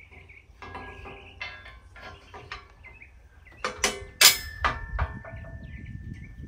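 Steel pin and grapple cylinder mount clinking and knocking as the pin is worked back into place by hand. The loudest metal knocks come about four seconds in.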